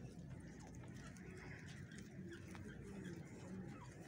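Birds calling faintly: scattered short chirps, over a steady low background hum.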